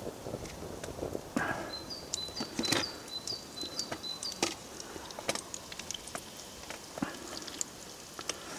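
A metal utensil clicking and knocking against a camp frying pan as meat patties are turned. From about two to four seconds in, a bird repeats a short high call a couple of times a second.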